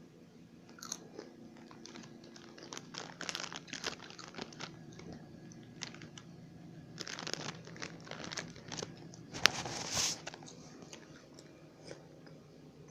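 A person biting and chewing a crunchy snack, with crunches coming in bursts and one sharp crack about two-thirds of the way through.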